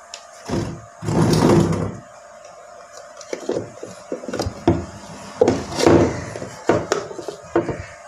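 Speaker driver being worked loose and pulled out of its cutout in a wooden speaker cabinet: a loud scraping rub about a second in, then a string of knocks and scrapes of the metal frame against the wood.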